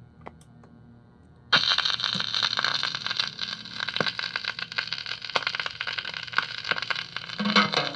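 A few faint clicks from the RCA Victor 45-EY-2 record changer's mechanism. About one and a half seconds in, the stylus sets down on a 45 rpm record and loud crackling surface noise comes through the changer's speaker. Music starts near the end.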